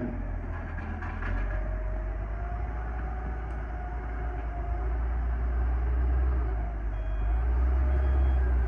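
Excavator's diesel engine running with a deep rumble that swells about five seconds in and again near the end as it takes load, a faint wavering whine riding over it.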